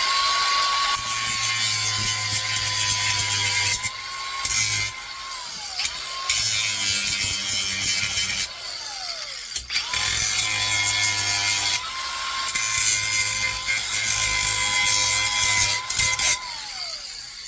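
Electric grinder running under load, grinding the riveted metal tabs off the back of a lawnmower solenoid. The motor's steady whine sits under the harsh grinding noise, and three times it winds down with a falling pitch as the trigger is let go between cuts.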